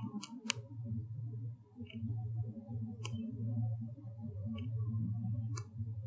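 Sharp, high clicks, about six scattered irregularly over a few seconds, over a steady low hum.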